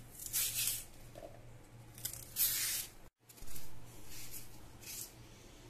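A knife peeling the thick skin off a raw green banana, in several short scraping strokes as strips of peel are cut and pulled away.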